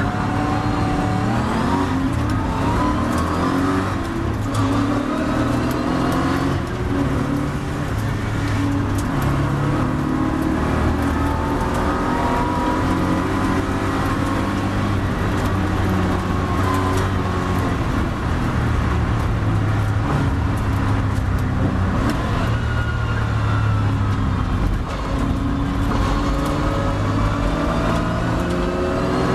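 Triumph TR7 race car's engine heard from on board under hard acceleration. The pitch climbs repeatedly and drops back at each gear change, easing off near the end as the car slows for a corner.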